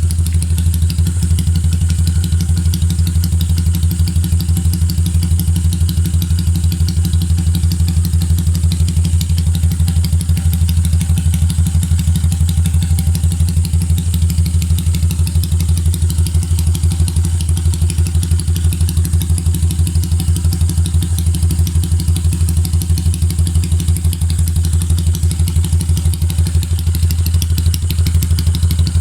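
Yamaha TMX155's single-cylinder four-stroke engine idling steadily, with an even, rapid pulse and no revving.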